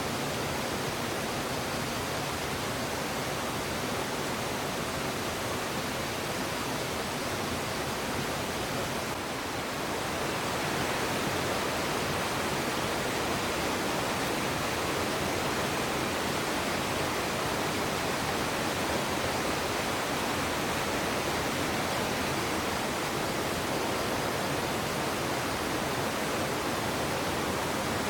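Steady rushing water, an even hiss that gets a little louder about ten seconds in.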